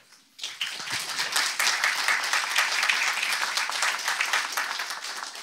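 Audience applauding: many hands clapping, starting about half a second in and fading away near the end.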